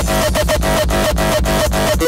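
Hardcore electronic dance music from a DJ mix: a fast, steady kick drum under a synth line. The kick comes back in right at the start after a brief break.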